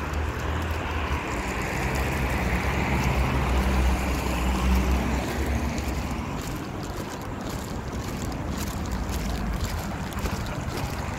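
Wind buffeting a handheld camera's microphone as a low, uneven rumble, over outdoor street noise that swells in the first few seconds and then eases.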